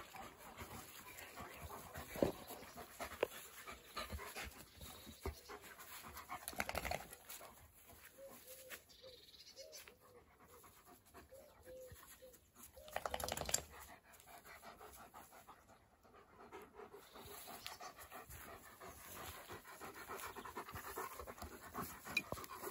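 Shepherd dog panting steadily, with scattered knocks and rustles. A row of short faint tones is heard in the middle, and a louder rustling burst comes about thirteen seconds in.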